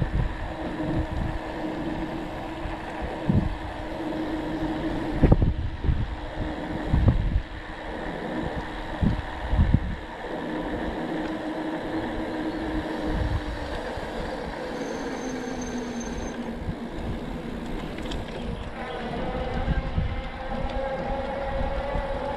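Riding noise from a camera on a moving bicycle: wind buffeting the microphone in irregular low thumps over a steady droning road hum.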